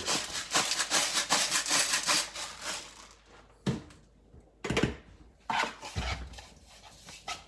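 Kitchen prep sounds: a quick run of scraping strokes for about three seconds, then a few separate soft knocks.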